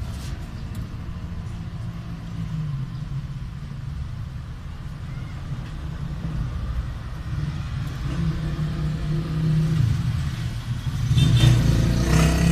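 Low, steady rumble of a motor vehicle engine running, growing louder and shifting in pitch near the end.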